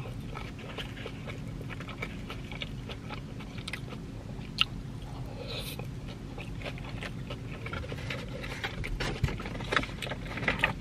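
Chewing and swallowing a mouthful of loaded tater tots topped with pulled pork and cheese sauce, with soft scattered mouth clicks and smacks, a sharper click about four and a half seconds in, and more clicks near the end. A steady low hum lies underneath.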